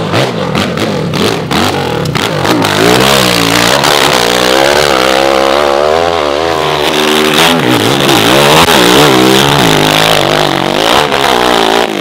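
Hill-climb dirt bike engine revving hard up a steep dirt slope. The pitch swings up and down again and again as the throttle is worked and the rear wheel spins, with loud spraying noise over the engine.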